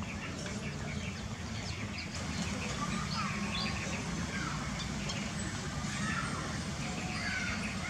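Small birds chirping repeatedly over a steady low hum.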